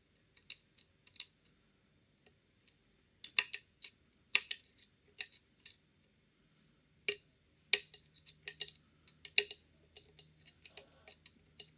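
Irregular metallic clicks and taps of a lock pick working the levers inside a Fichet five-lever cabinet lock, lifting lever 4 to its gate under tension. The clicks come singly and unevenly, a few of them much louder than the rest.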